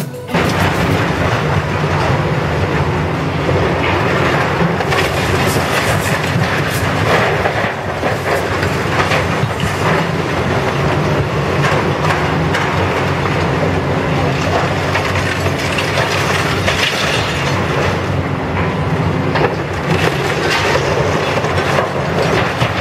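Wrecking-ball demolition of a concrete building: a heavy machine's engine runs steadily underneath while concrete and debris crash and clatter down continuously.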